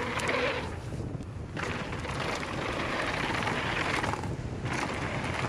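Wind rushing over an action camera's microphone as a mountain bike descends a dirt jump trail at speed, over the low rumble of tyres on hard-packed dirt. The hiss drops away briefly twice.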